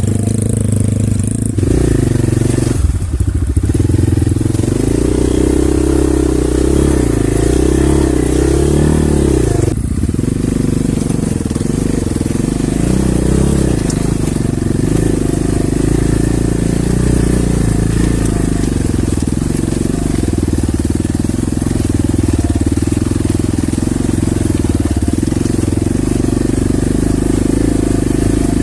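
Off-road motorcycle engine running hard, its pitch wavering, with brief drops in revs about a second and a half in, again at three seconds, and once more near ten seconds.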